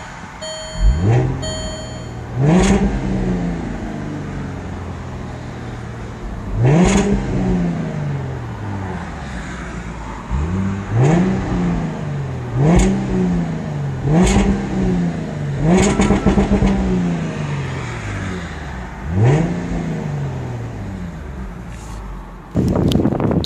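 Jaguar F-Type's supercharged V6 being free-revved in Park, heard from inside the cabin: about ten quick throttle blips, each jumping up in pitch and sliding back down to idle. A few short electronic beeps sound in the first two seconds, and near the end the engine becomes louder and rougher.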